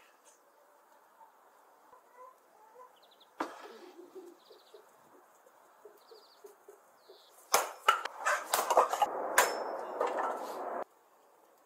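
Hens clucking. About halfway through comes a few seconds of loud flapping and clattering full of sharp clicks, which stops abruptly.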